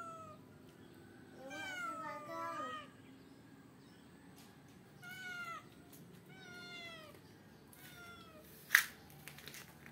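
A cat meowing over and over: about six short meows, each falling in pitch. A sharp click near the end is the loudest sound.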